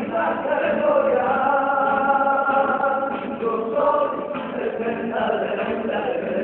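Men's voices singing a Cádiz carnival song together, holding long notes.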